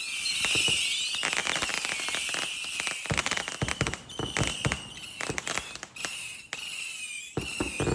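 Fireworks going off: a rapid run of sharp crackling pops over a high, wavering squeal. The pops come thick at first, then more sparsely after about three seconds.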